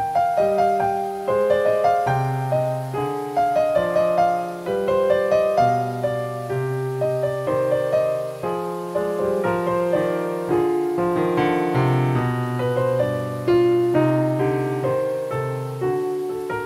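Piano music: melody notes over held bass notes, each struck and dying away.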